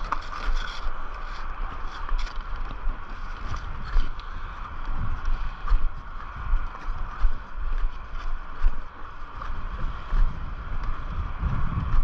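Ski chairlift in motion just after loading: a steady mechanical whir, with irregular low rumbling buffets of wind on the microphone, heaviest near the end.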